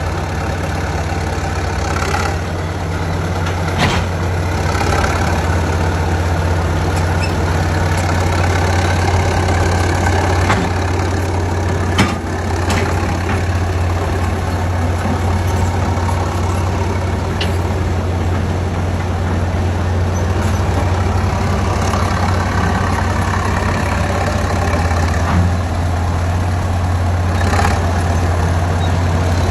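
Engine of a vintage track loader running steadily at a low, even pitch, with a few sharp metallic knocks along the way.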